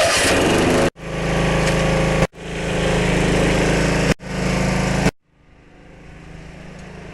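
Small single-cylinder Briggs & Stratton Quantum mower engine running at a steady speed. The sound cuts off abruptly three times and picks up again each time. About five seconds in it stops, leaving a much quieter steady hum that slowly grows louder.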